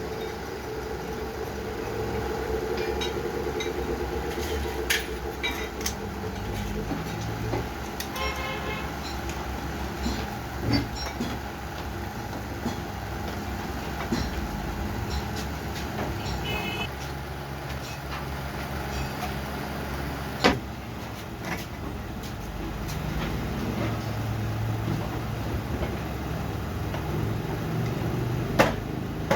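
An old truck engine running steadily, with a low rumble throughout. A few sharp clicks and knocks occur, the loudest about twenty seconds in.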